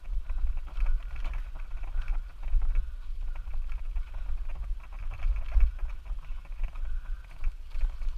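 Mountain bike rolling fast down a dirt trail: the bike rattles and clatters over bumps and roots, with a heavy uneven wind rumble on the camera mic.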